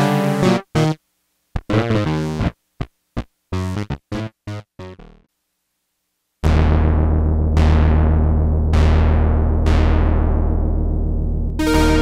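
Black Corporation ISE-NIN analogue polysynth played dry, with no reverb. Short staccato chords stop about five seconds in. After about a second's gap, a different patch plays low sustained chords, each struck with a bright attack about once a second that fades, and a higher held tone joins near the end.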